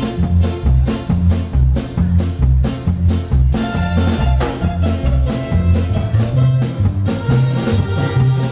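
Norteño band playing an instrumental passage, with a steady beat and a bouncing bass line. The sound fills out with more instruments about three and a half seconds in.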